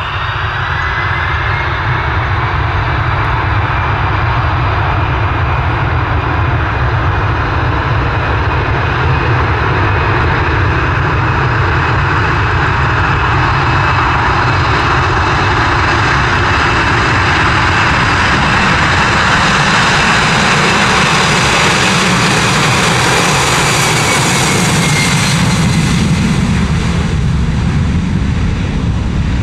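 Boeing 747-400 freighter's four jet engines at takeoff power during the takeoff roll, a steady loud rush that swells as the aircraft comes closer. A high whine runs above it and drops in pitch near the end as the jet passes by.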